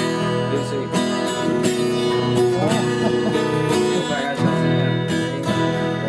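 Two acoustic guitars strummed together, playing chords in an instrumental passage between sung lines.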